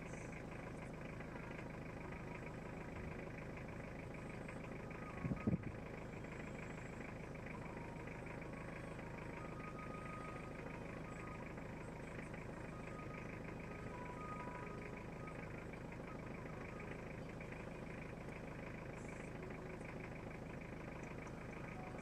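A vehicle engine idling steadily, with a couple of brief knocks about five seconds in.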